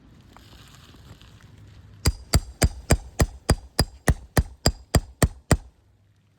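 A roof snake (shingle ripper) being struck with a hammer to work nails loose under a three-tab asphalt shingle: a run of about thirteen quick, even blows, roughly three a second, starting about two seconds in and stopping about a second before the end.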